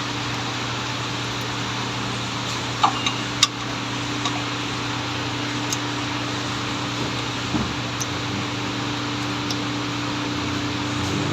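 Steady mechanical hum like a running fan, with a few sharp metallic clicks about three seconds in.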